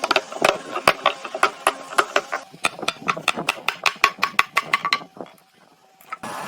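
Rapid, even series of sharp knocks or clicks, about five or six a second, that stops about five seconds in. A steady machine-like noise starts just at the end.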